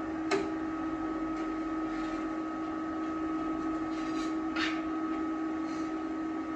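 Steady machine hum with two constant tones, the switched-on TIG welder's cooling fan and electronics idling, with a single sharp click about a third of a second in.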